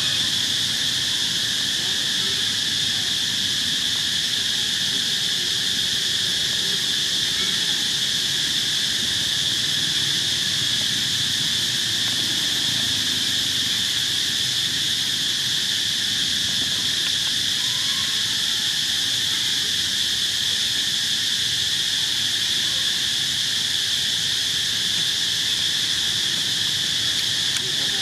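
Steady high-pitched insect chorus, one unbroken drone with no breaks.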